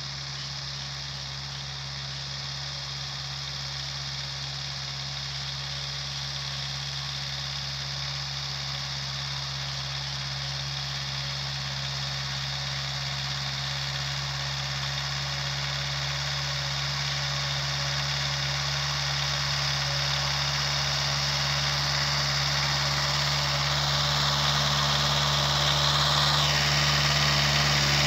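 VST Shakti MT 270 compact tractor's diesel engine running steadily, growing gradually louder as the tractor comes closer.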